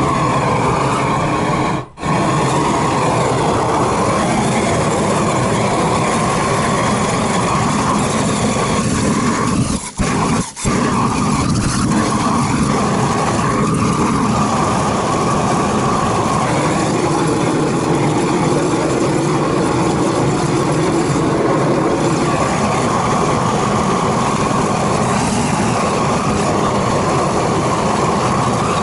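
Handheld flamethrower torch running with a loud, steady rush of flame as it sears butter-coated steaks on a grill grate. The flame cuts out briefly about two seconds in and twice in quick succession near ten seconds.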